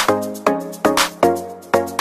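Background music with a steady beat: pitched notes struck about four times a second.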